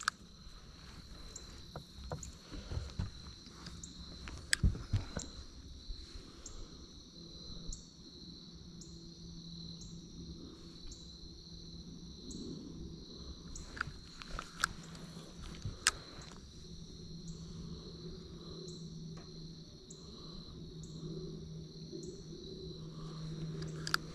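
Insects trilling steadily, with a short higher chirp repeating roughly once a second. Under them runs a faint steady low hum, and there are a few sharp clicks.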